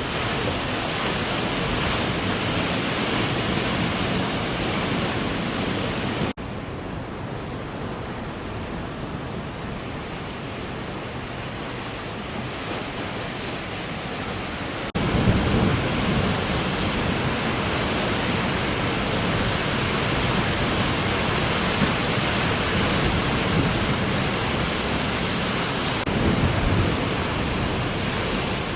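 Ocean surf and wind rushing over the microphone, a steady roar of noise. It drops abruptly to a softer rush about six seconds in and jumps back up about fifteen seconds in.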